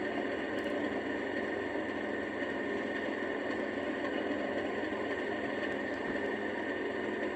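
Recorded Class 37 diesel engine sound idling steadily, played through the small onboard speaker of an OO gauge model locomotive's sound decoder: an even, unchanging drone.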